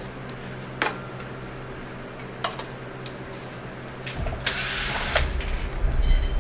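Hands working on a DeWalt DW788 scroll saw: a sharp click a little under a second in, a faint tick, then a rustling scrape with a low rumble over the last two seconds, over a steady low hum.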